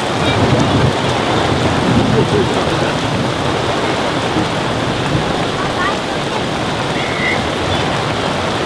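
Heavy cloudburst rain falling steadily, a dense, even hiss.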